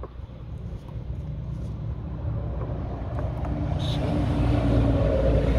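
Rumble of a passing road vehicle's engine, growing steadily louder, over a few faint clicks from the hand primer bulb of a diesel fuel filter being squeezed.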